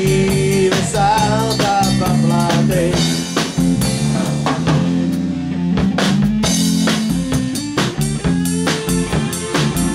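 Live band playing an instrumental passage: a drum kit with cymbals keeping a steady beat under an amplified electric bass guitar, with a wavering melody line about a second in.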